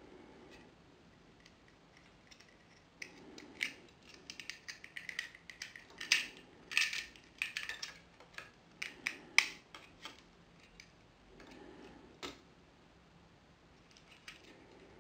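Plastic Lego parts being handled and fitted together: a dense run of small clicks, taps and scrapes from about three to ten seconds in, then a single sharp click a couple of seconds later.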